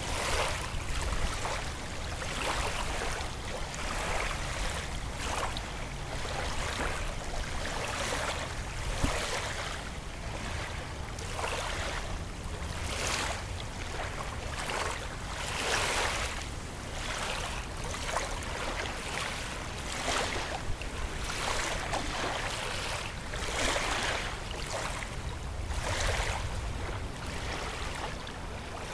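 Small river waves lapping at the bank, with irregular swells of splashing every second or two, over a steady low rumble of wind on the microphone.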